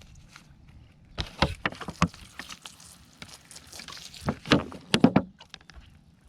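Water splashing and sloshing in two short bunches of strokes, one a little over a second in and a louder one past the middle, as of hands or feet moving through shallow water.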